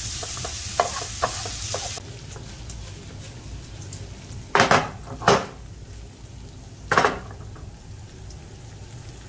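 Diced guanciale sizzling in a frying pan, with tongs clicking against the pan as it is stirred; the sizzle cuts off abruptly about two seconds in. Then three short scraping clatters as the pan is handled on the stove.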